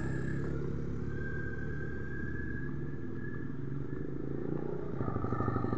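A small engine idling steadily, a low even hum with a fast, fine pulse.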